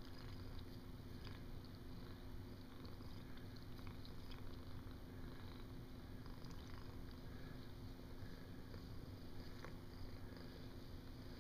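Calico cat purring steadily and faintly while being stroked on the head and cheek.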